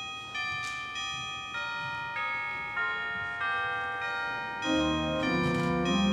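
Organ playing a prelude: held high notes come in one after another, then lower notes join about three quarters of the way through and the music grows louder.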